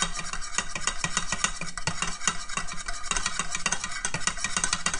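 Wire whisk beating roux in a metal saucepan: a rapid, even clatter of strokes against the pan, a lot of noise.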